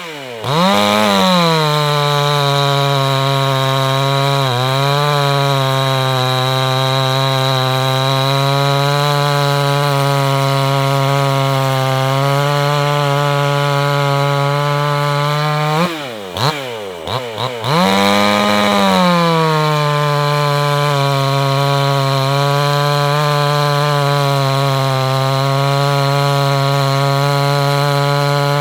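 Small two-stroke chainsaw held at full throttle, cutting through wood with a square-filed .325 pitch chain. About sixteen seconds in the engine falls back for a couple of seconds, then revs up and cuts again.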